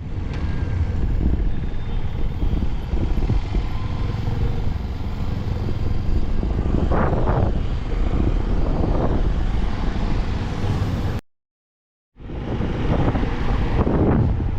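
Motorcycle riding noise, the TVS Apache RTR 160's engine mixed with road rumble, under heavy wind rushing over the camera's microphone. The sound cuts out completely for about a second near the end, then comes back.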